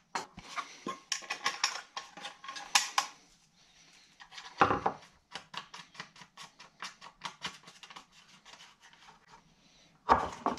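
Hard plastic tray and its bolted-on metal bracket being handled and wiggled over a bench vise: a loose run of small clicks, scrapes and rubs, with a louder knock about halfway through.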